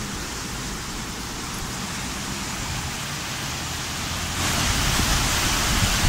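Fast-flowing mountain river rushing over rapids in a steady roar of water. It grows louder about four and a half seconds in, with a low rumble of wind on the microphone.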